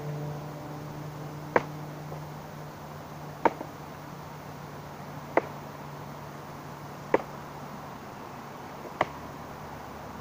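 Five sharp wooden knocks, evenly spaced about two seconds apart: a stick being swung hard against another stick to break it.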